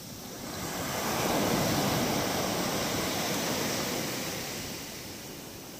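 Sea surf: a wave rushes in, swelling about a second in and washing away again near the end.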